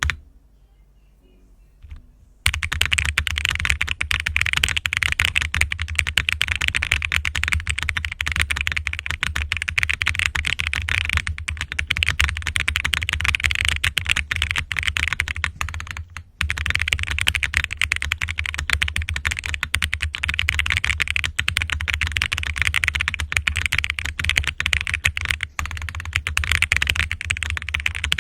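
Fast, continuous typing on a QK80 tenkeyless mechanical keyboard with lubed and filmed Boba U4T tactile switches, an aluminium plate and PBT keycaps: a dense clatter of keystrokes. It starts about two seconds in after a single click, with a short pause about halfway through.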